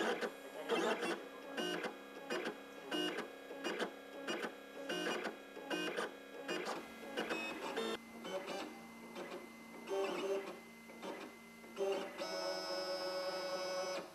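Gravograph M20 rotary engraving machine engraving a salt shaker, its motors whirring in short stepped moves about two a second. In the last two seconds it runs in one steady whine that stops near the end.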